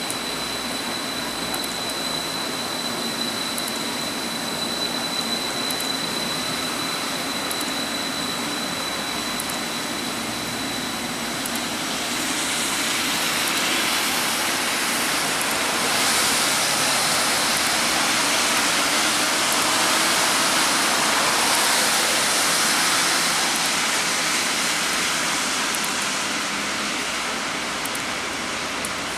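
A rubber-tyred Taipei Metro Wenhu Line train running along a wet elevated guideway, over a steady hiss of heavy rain. The train's tyre and running noise swells from about twelve seconds in, is loudest around twenty seconds, and fades near the end. A thin, high, steady whine holds for the first ten seconds or so, then stops.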